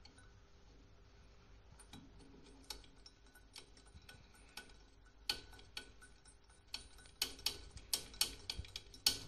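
Faint, irregular sharp clicks and taps of metal tools and parts being handled. They are sparse at first and come more often, and a little louder, over the last few seconds.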